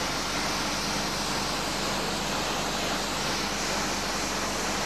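Steady hiss of a high-pressure spray lance jetting onto a brick wall to clean off graffiti, over a faint steady low hum.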